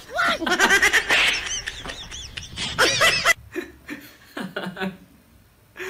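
A man laughing hard in repeated bursts, tailing off into quieter chuckles over the last couple of seconds.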